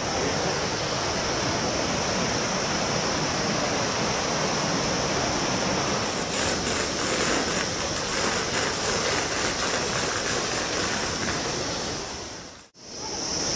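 Steady rushing of a fast, rocky mountain river, with a steady high-pitched whine above it. The sound drops out briefly near the end.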